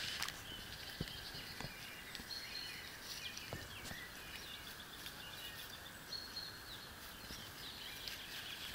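Faint birdsong: many short chirps and trills from several small birds over a steady outdoor hiss, with a few soft clicks in the first few seconds.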